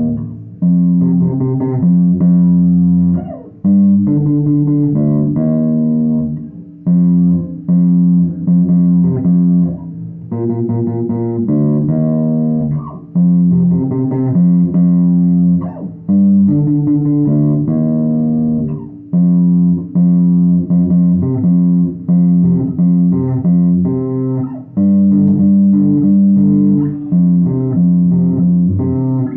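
Fodera six-string electric bass played solo through an amp, fingerstyle: a melodic bassline of held notes and short phrases, broken by brief pauses.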